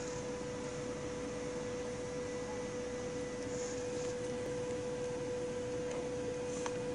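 A steady electrical hum at one fixed pitch, with fainter overtones, over an even background hiss; the cat itself makes no heard sound.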